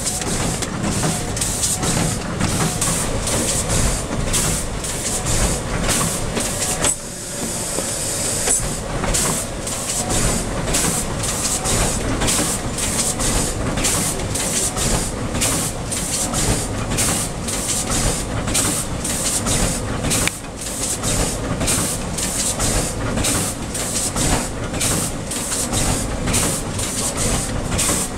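A 1992 Wohlenberg 44FS50 three-knife book trimmer running in automatic operation, with a steady, rhythmic mechanical clatter of knocks and a high hiss as it clamps, trims and feeds out book blocks. The hiss dips briefly about seven seconds in.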